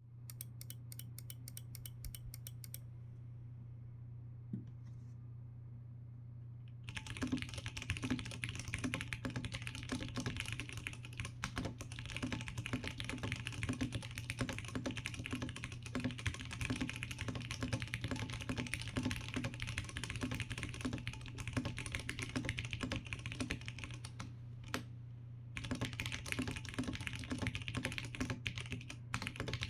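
Typing on a Ducky Year of the Dragon 2024 mechanical keyboard (gasket-mounted, FR4 plate, aluminum case, Cherry MX2A Purple switches). Steady fast typing begins about seven seconds in and pauses briefly near the end, after a faint rapid ticking at the start. A steady low hum lies underneath.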